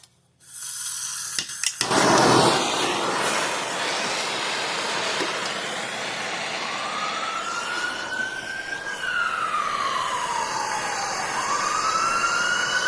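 A heating tool switches on about half a second in and runs with a loud, steady blowing hiss on the plastic pipe fitting. From about halfway through, a siren wails in the background, slowly rising and falling in pitch.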